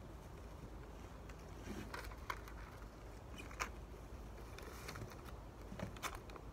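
Low steady background rumble with a few scattered sharp clicks and light rustles, the loudest about three and a half seconds in and another about six seconds in.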